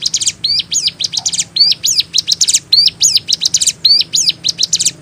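Ciblek gunung (a prinia) singing continuously, a loud, fast run of sharp high chirping notes, several each second, with no breaks.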